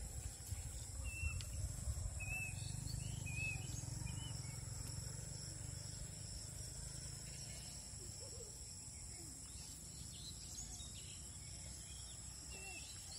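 Outdoor ambience of insects calling steadily at a high pitch, with short bird chirps scattered through it, over a low rumble that fades in the first half.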